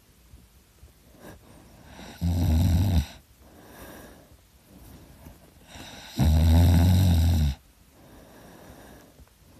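A person snoring in sleep: two loud, low-pitched snores about four seconds apart, the second a little longer, with quieter breathing between them.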